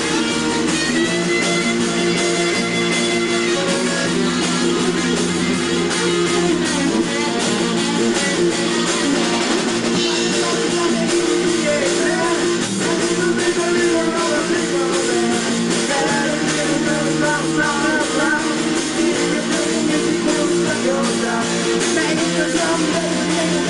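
A live band playing with strummed guitars, steady and continuous.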